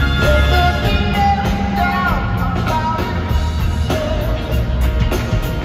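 Live rock band with horns playing in an arena, a male voice singing over a steady bass and drum groove.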